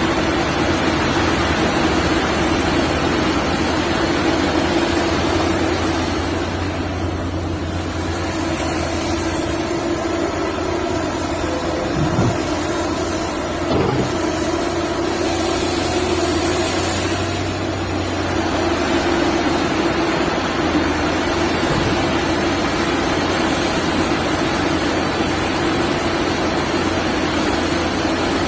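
Liebherr 954 hydraulic excavator's diesel engine running steadily with a deep note, easing slightly twice. Two short knocks come about a second and a half apart near the middle.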